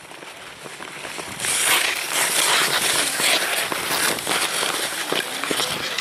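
Speed-skate blades scraping and hissing across bare lake ice, with many small crackling clicks, as a line of short-track skaters skates close by. It gets much louder about a second and a half in.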